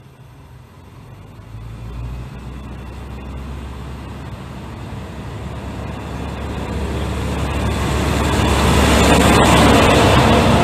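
Nishikigawa Railway diesel railcar train pulling into a station and passing close by: a low diesel engine rumble with wheel and running noise that grows steadily louder as it comes alongside. A single sharp click near the end.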